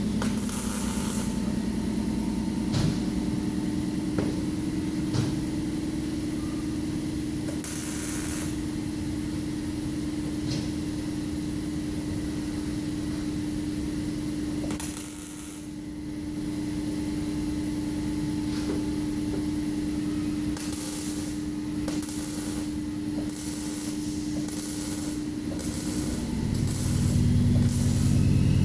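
MIG welder at work: a steady hum under a crackling hiss, with short bursts of arc sizzle, first singly and then in a run of about one a second near the end, as in stitch or tack welding.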